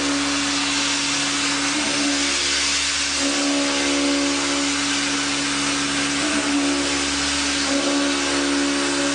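CNC machine running: a steady hiss with a humming tone underneath that steps slightly in pitch a few times.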